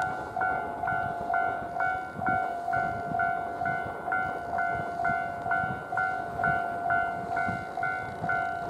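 Railway level-crossing warning bell ringing steadily at about two strikes a second, over the low rumble of an approaching Tobu 500 series Revaty electric train.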